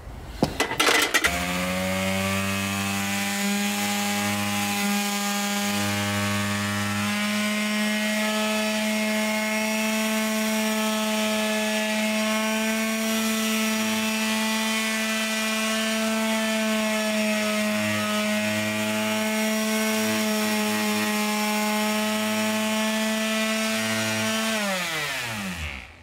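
A few clicks, then a cordless Craftsman sheet sander starts about a second in and runs at a steady pitch, its pad rubbing down bare red cedar boards to take out mildew. Near the end it is switched off and winds down, falling in pitch before it stops.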